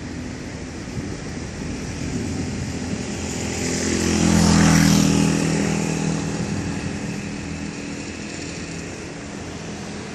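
Airplane flying overhead: its engine sound swells to a peak about halfway through, then fades away.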